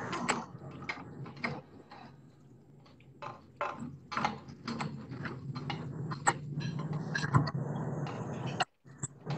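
Irregular clicks and clinks of steel kitchen utensils being handled against a steel pot, over a low steady hum, with a quieter spell about two seconds in.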